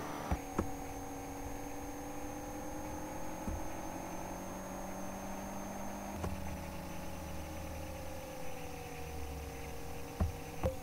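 Steady electrical hum made of several tones with a thin high whine above them, drifting slightly in pitch, with a few faint clicks. The tones change abruptly twice, about a third of a second in and about six seconds in.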